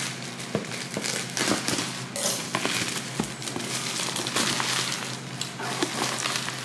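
Packaging crinkling and crackling in irregular bursts as a package that is hard to open is pulled and worked open by hand.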